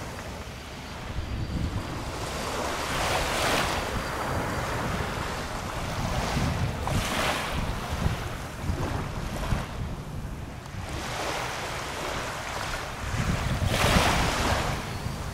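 Small, gentle waves lapping onto a sandy beach, each wash a soft hiss every few seconds, the loudest near the end, over a low rumble of wind on the microphone.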